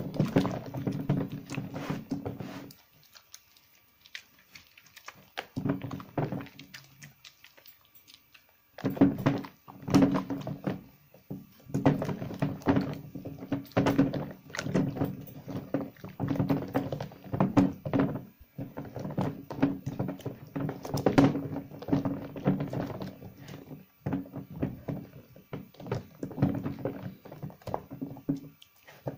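Hands squeezing and rubbing soaked recycled soap bars in a plastic basin of cold, lathery water: wet squelching and sloshing in irregular bursts. It goes almost quiet for several seconds between about three and nine seconds in, apart from one short burst.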